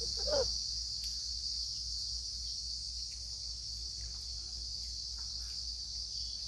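Steady high-pitched chirring of an insect chorus, unchanging throughout, with a short vocal sound near the start.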